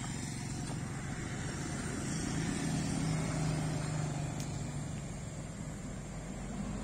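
A motor vehicle's engine running, a steady low hum that grows louder about halfway through and then eases off.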